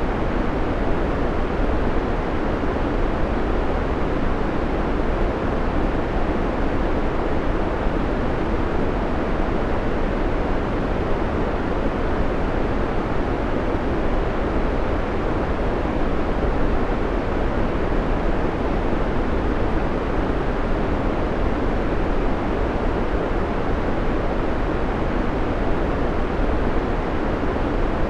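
Steady white-noise track: an even, unbroken hiss with a deep, rumbling low end, constant in level throughout.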